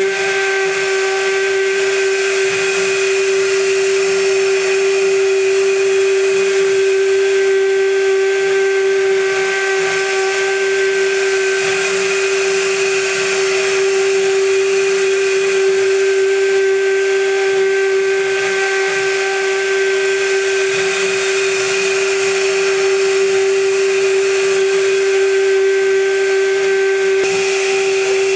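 High-frequency spindle of a gantry CNC milling machine running with a steady whine while a cutter mills aluminium. A hiss of cutting rises and falls every several seconds as the tool moves along its paths.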